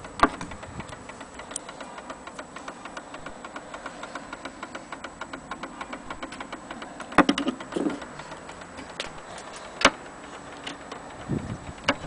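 Antique Kienzle German mantel clock's pendulum movement ticking steadily and rapidly. A few louder knocks cut in, one about seven seconds in and another near ten seconds.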